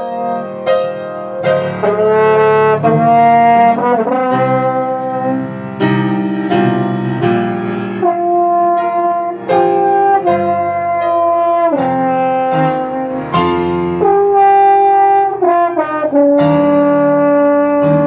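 French horn playing a melody of held notes over piano accompaniment.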